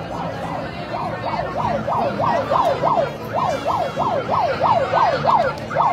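Electronic siren in yelp mode, its pitch sweeping quickly up and down about four times a second, growing louder about a second in, with a couple of brief breaks.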